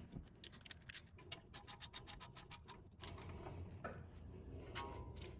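Socket ratchet clicking in quick runs as the brake rotor's retaining screw is driven into the hub, with a few scattered metal knocks near the end.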